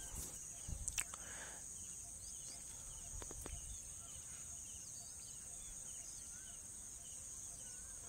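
Faint background ambience with a steady high-pitched hiss, a few light clicks about one and three seconds in, and scattered faint chirps.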